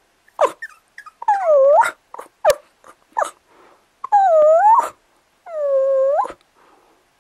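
Cavapoo puppies whining: three drawn-out whines that dip and then rise in pitch, with short yips between them.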